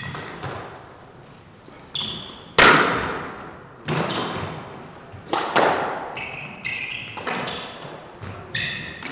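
Squash rally: the ball smacks off rackets and the walls, a sharp echoing hit every second or so, the loudest about two and a half seconds in. Short squeaks of court shoes on the wooden floor come between the hits.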